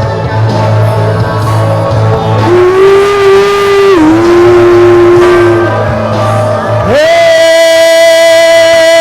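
Slow worship music with singing, built on long held notes. About seven seconds in, a new note slides up into place and holds steady.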